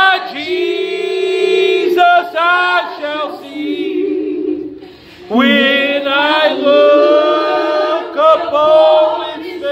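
Worship singing: a voice holds long notes that slide in pitch, with other voices beneath. The singing comes in two long phrases with a short break about five seconds in.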